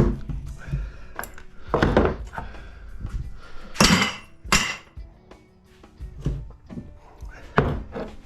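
Metal knocks and clanks, about five loud ones at irregular intervals, as a PTAC fan motor is worked apart to free its copper stator, with background music underneath.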